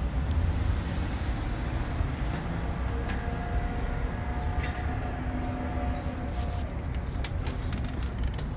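Steady low rumble of vehicles in a parking lot, with faint steady tones in the middle and a few sharp clicks near the end.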